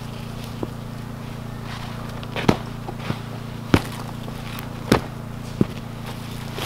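Footsteps on loose dug soil and twigs: a handful of separate sharp snaps and crunches about a second apart, over a steady low hum.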